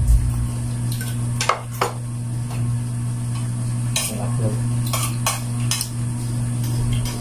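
Spoons clinking and scraping on plates during a meal, with a few sharp clinks about a second and a half in and several more between four and six seconds in, over a steady low hum.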